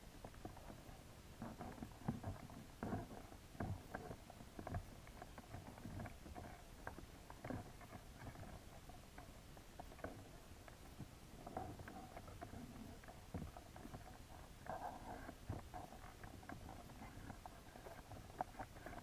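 Irregular, muffled taps and clicks underwater, as an American signal crayfish's claws and legs move over the plastic mesh of a trap.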